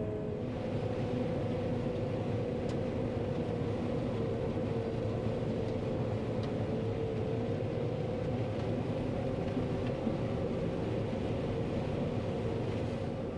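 John Deere 9500 combine harvesting corn, heard from inside the cab: a steady mechanical drone with a held whine in it, running evenly throughout.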